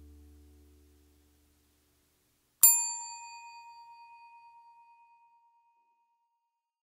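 The last acoustic guitar chord of the background music fades away; then, about two and a half seconds in, a single bright bell-like ding is struck and rings out for about two and a half seconds with a slight wavering.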